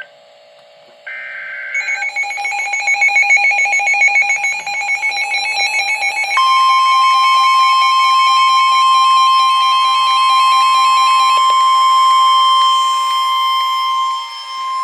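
NOAA Weather Radio emergency alert: a short burst of high data tones, then the radios beeping in a fast pulse, then the steady 1050 Hz warning alarm tone from about six seconds in, which announces a tornado warning.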